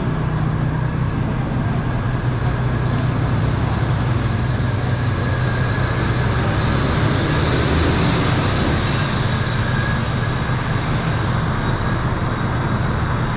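Steady low drone of idling bus engines and road traffic at a covered bus stop, with no break or change.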